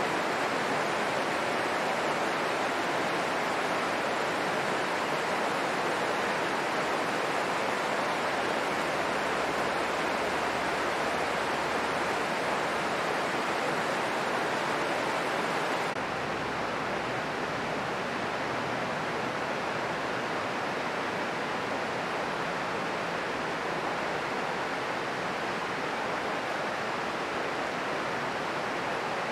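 Steady hiss of heavy rain falling. About halfway through, the sound shifts slightly: it gets a little duller with a low rumble underneath.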